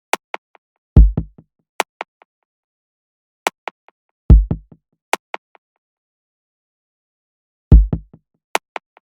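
Sparse electronic music beat with no vocals. A deep booming kick drum lands about every three and a half seconds, each trailed by a couple of quieter hits, with pairs of sharp clicks between the kicks.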